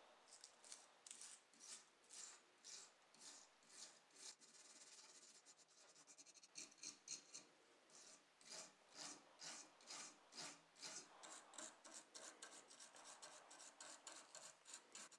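Wire brush scrubbing blistered, stripper-lifted paint off a die-cast metal model car body: a faint, rhythmic scratching of about two or three strokes a second, getting a little quicker in the second half.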